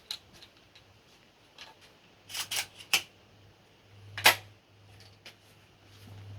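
Sharp metallic clicks and clacks of a Wolverine XP pump shotgun being handled, in scattered ones and twos with a cluster of three or four clicks in the middle and one loud clack about two-thirds of the way in. A faint low hum runs underneath in the second half.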